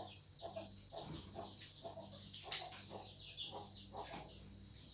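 Chickens clucking softly, with many short, high, falling calls over low clucks, and one sharp click about two and a half seconds in.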